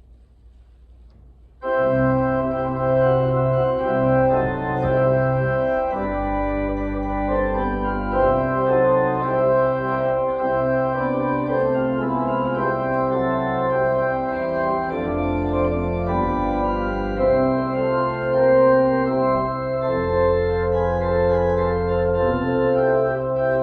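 Church organ playing a postlude after the dismissal, starting suddenly about two seconds in with full sustained chords over low bass notes that change every few seconds.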